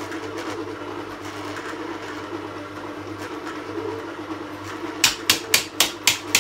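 Stand mixer motor running steadily at low speed, its dough hook working a wet brioche dough. Near the end comes a quick run of sharp knocks, about four a second.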